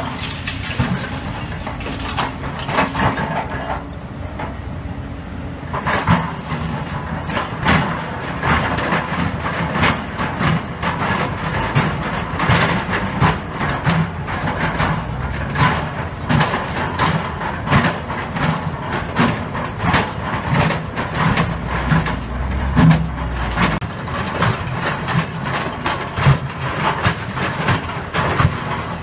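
Excavator engine running while its bucket digs and scrapes through broken concrete and steel rebar, with frequent sharp knocks and clatter of rubble and metal.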